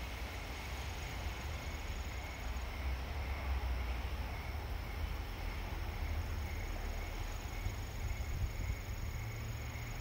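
Steady night-time outdoor ambience: a low rumble of distant city traffic under an even hiss of light rain, with insects trilling faintly in a high steady tone and a softer pulsing chirp.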